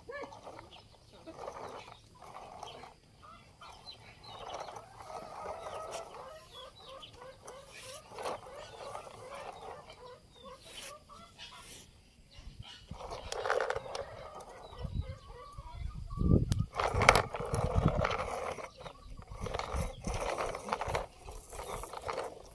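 Chickens clucking in the background. A louder low rumble with knocks comes in past the middle and lasts several seconds.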